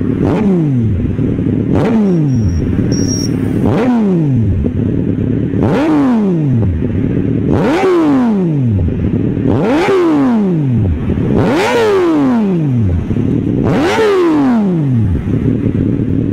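Suzuki Hayabusa's inline-four engine through Brock's Performance dual Alien Head slip-on megaphone mufflers, blipped from idle eight times, about once every two seconds. Each rev rises sharply and then falls back to idle.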